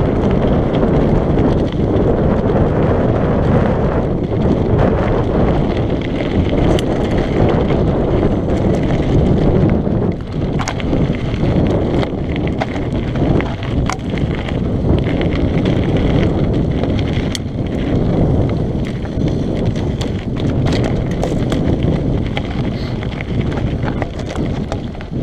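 Mountain bike descending a loose gravel and rock trail at speed: steady wind on the microphone and the rumble of tyres over stones, with scattered clicks and knocks as the bike rattles over rocks.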